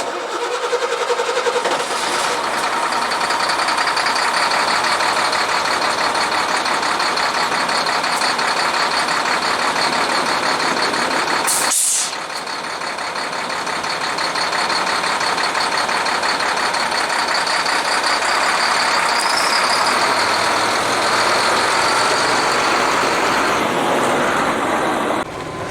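Sterling Acterra dump truck's diesel engine running steadily, with a faint high whine over it; the sound breaks off briefly about twelve seconds in and then carries on.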